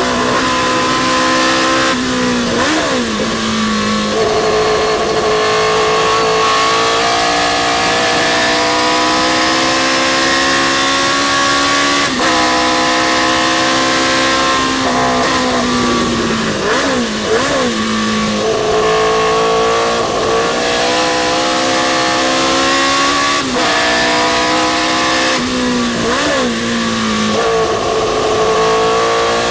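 Historic sports racing car's engine at high revs, pulling hard with the pitch slowly climbing for long stretches. Three times, about 3, 16 and 26 seconds in, the revs fall sharply with quick up-and-down flickers, as on downshifts under braking, before climbing again.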